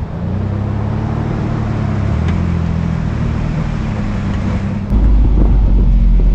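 Vintage Willys Jeep truck's engine running steadily as it drives, with a deeper, louder low rumble coming in suddenly about five seconds in.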